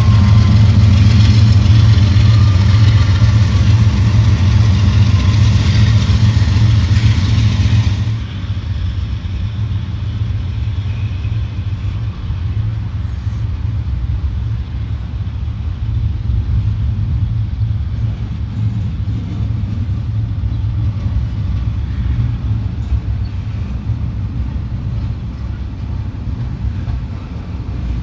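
Diesel locomotive engines running with a steady, deep hum. About eight seconds in the sound drops abruptly to a quieter rumble.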